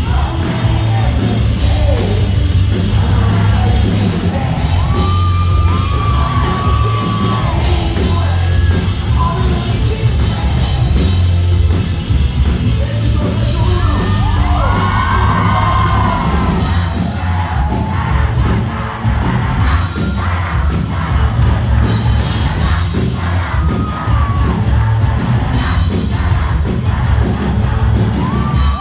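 Live indie-rock band performing through a loud PA, with a singing voice over heavy bass, and the crowd yelling and whooping along.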